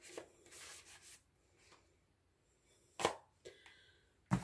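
Album pieces handled on a wooden table: a faint rustle of paper or card, then two sharp knocks as a piece is set down, the louder one near the end.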